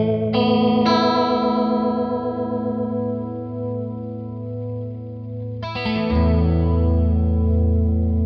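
Electric guitar chords played through a JHS Emperor V2 chorus pedal set to imitate a Leslie rotary speaker, so the ringing chords warble. Chords are struck just after the start and again about six seconds in, and each is left to ring.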